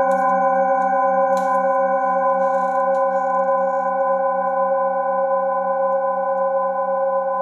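Several metal singing bowls ringing on together as a sustained chord of steady tones that slowly fades, the lowest tone pulsing about five times a second. A brief faint rustle comes a little over a second in.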